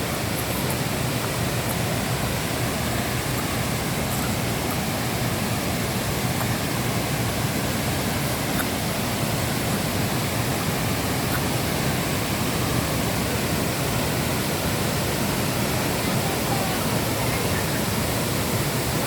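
Waterfall: a steady rush of falling water, an even noise that does not change.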